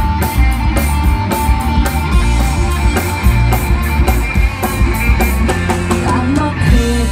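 Live rock band playing an instrumental passage: distorted electric guitars, bass guitar and a drum kit, with cymbals keeping a steady beat of about four hits a second.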